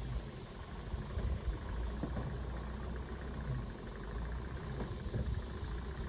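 Engine of a truck loaded with sugarcane, running slowly at low revs as it approaches, with a few short knocks here and there.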